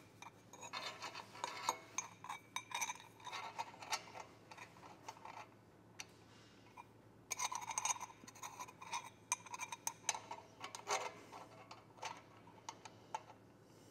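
Light metallic clinks and taps, some ringing briefly, as stainless steel exhaust tubing is handled and offered up into place against the other pipes. They come in two busy spells with a short lull near the middle.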